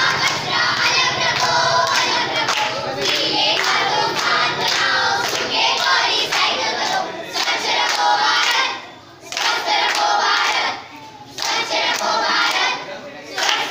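A group of children singing together in chorus, in phrases broken by short pauses in the second half, with hand clapping.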